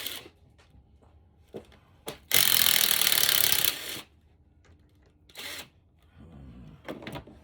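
A power tool runs in a loud burst of about a second and a half starting about two seconds in, and briefly again about five seconds in, with small knocks of parts being handled between.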